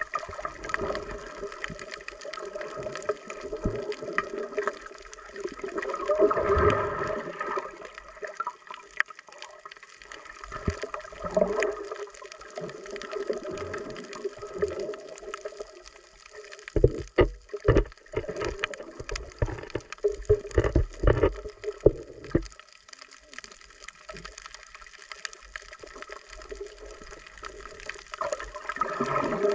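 Water sloshing and gurgling as heard by an underwater camera, swelling and fading every few seconds. A run of sharp knocks comes just past the middle.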